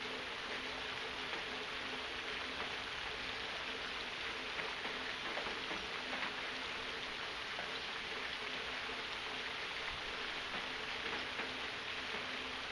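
Steady rain falling: an even hiss with faint scattered patter, and a faint steady hum underneath.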